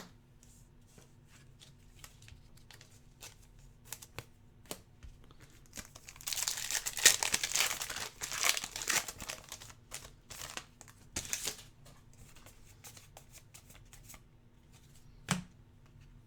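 A trading-card pack wrapper crinkling and tearing open for a few seconds in the middle, with scattered light clicks and taps around it and a single thump near the end.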